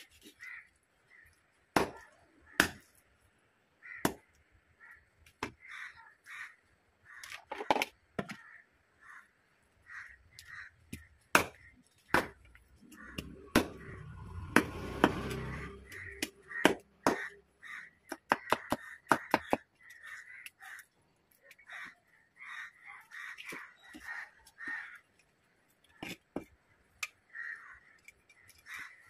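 Cleaver chopping through a fish head on a wooden block: sharp, irregular chops and cracks. Crows cawing repeatedly, with a brief low rumble about halfway through.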